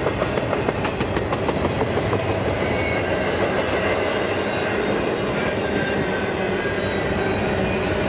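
Empty double-stack container train cars rolling past: a steady rumble of wheels on the rails, with a few wheel clicks over rail joints in the first second.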